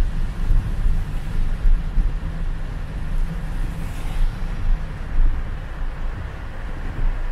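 Car driving on a rain-soaked road in a downpour: a steady low rumble of tyres and engine under the hiss of rain and water spray, with a brief rise in the hiss about four seconds in.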